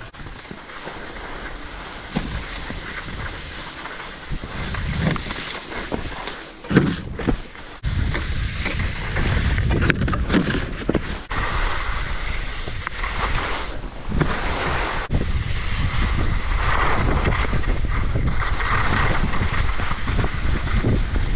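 Wind rushing over the microphone and skis scraping over soft spring snow during a downhill run, loud and steady from about a third of the way in. Before that there is a quieter stretch with a few knocks while riding a T-bar lift.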